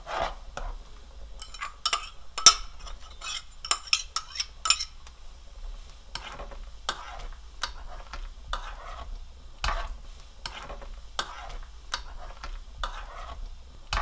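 A ladle stirring a pot of boiling rice cake soup, with irregular clinks and scrapes against the pot, most frequent in the first few seconds, over the bubbling of the boil.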